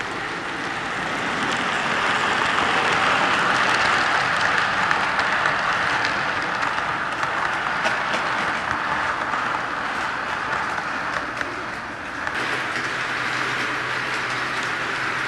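HO scale model steam train running past on the layout track: a steady rolling rumble of wheels on rail with light clicks, growing louder as it nears and then slowly fading. About twelve seconds in the sound changes abruptly to a steadier noise with a low hum.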